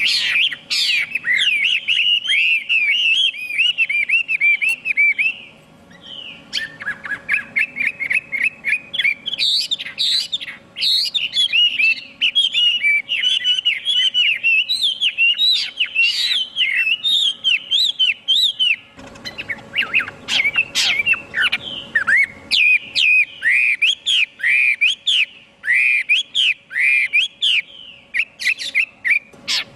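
Chinese hwamei (họa mi) singing a long, loud song of rapid repeated whistled notes in varied phrases, with a short pause about six seconds in.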